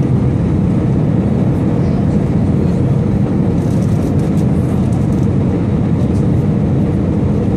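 Steady cabin noise inside an Airbus A319 airliner on descent: an even, low rush of engine and airflow noise.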